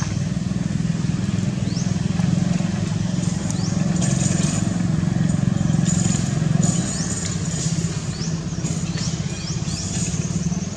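Motorcycle engine running steadily as a low drone, with short high rising chirps scattered over it.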